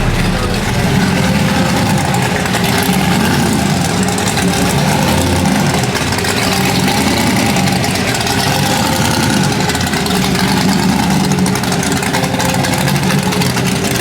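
Car engines running at idle, a steady mechanical rumble without a clear rev.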